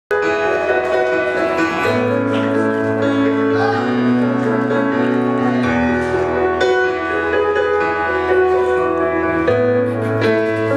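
Live rock band playing without vocals: electric guitars, keyboard and drums over held chords, with the bass note changing about every four seconds.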